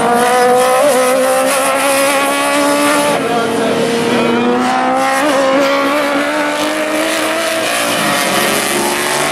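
Racing motorcycle engines at high revs as classic superbikes ride through a chicane, the engine note drifting down and jumping back up a few times as the riders brake, shift and accelerate.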